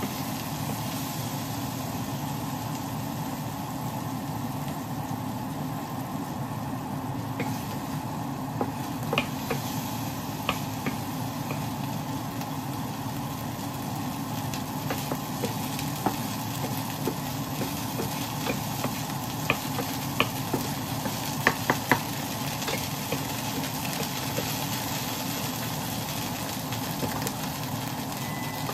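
Oil sizzling in a frying pan, with scattered sharp pops of spatter that come thickest about two-thirds of the way through, over a steady low hum.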